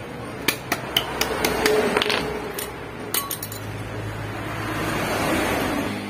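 A screwdriver clinking and scraping against steel parts of a scooter's rear drive. A string of sharp metallic taps comes in the first three seconds, followed by a softer scraping.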